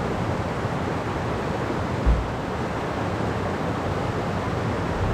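Steady rushing of waterfall and creek water, with a brief low thump about two seconds in.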